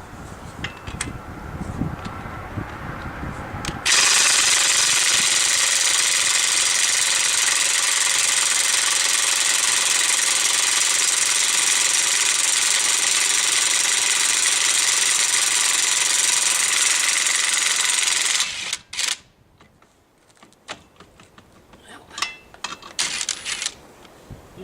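Ridgid 18V brushless half-inch impact wrench hammering without a break for about fourteen seconds on a stuck fastener, then stopping suddenly. A few light clicks and knocks follow.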